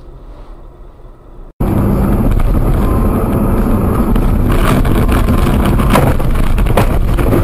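Car noise heard from a dashcam inside the car: a faint cabin hum, then, about a second and a half in, loud engine and road noise that starts abruptly, with a few knocks in the second half.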